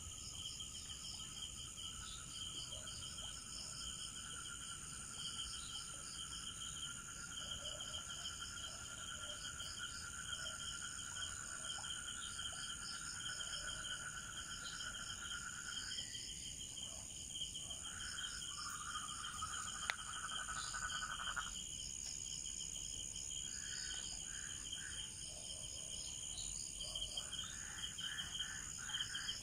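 Night chorus of crickets and other insects: a rapid, steady pulsing chirp layered with several continuous high trills. A lower trill runs through the first half, stops, resumes for a few seconds, and returns in short bursts near the end.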